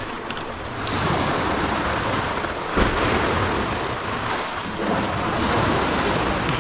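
Sea surf breaking and washing against a concrete breakwater: a loud, continuous rushing noise that swells and eases, with a single thump a little before the middle.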